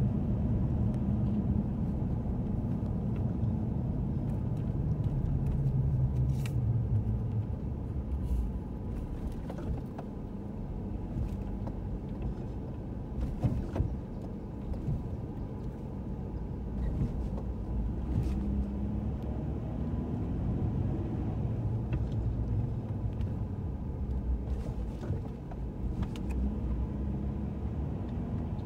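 Car engine and road noise heard from inside the cabin while driving slowly, a steady low rumble, with a few faint clicks scattered through it.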